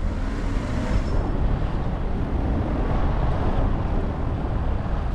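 A car driving, with a steady low rumble of engine and road noise and wind buffeting the microphone.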